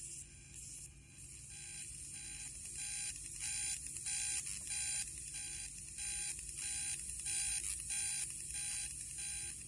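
Electromagnetic interference from a PCA9685 PWM servo driver board, picked up by a probe and heard as audio: a steady beat of short buzzy beeps about twice a second over a high hiss, with triplets that can just be heard within the beat.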